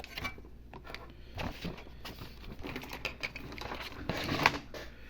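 Scattered light clicks, taps and short rustling scrapes of small parts and tools being handled on an electronics workbench, over a faint steady hum.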